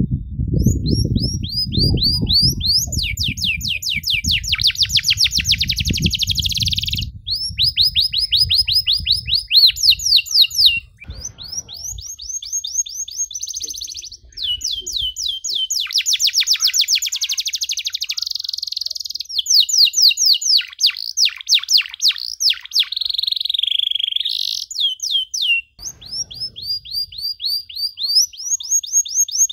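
Domestic canary singing a long, loud song of fast trills and rapidly repeated notes, phrase after phrase with only short breaks. A low rumble runs under the song for the first dozen seconds.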